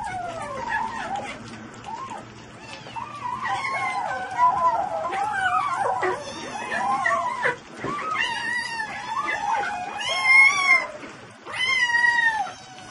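A pet animal giving long, wavering calls that slide up and down in pitch, with two short breaks and louder, higher calls in the last third.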